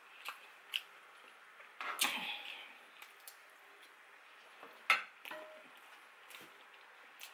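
Close-miked eating sounds: scattered wet mouth clicks and chewing while eating potato salad with a spoon. A spoon scrapes the plate about two seconds in, and there is a sharp clink of the spoon on the plate just before five seconds.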